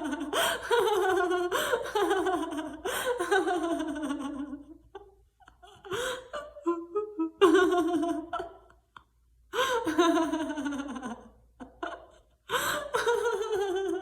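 A woman laughing heartily as a laughter-yoga exercise, in about four long peals that each slide down in pitch, with short breaks between them.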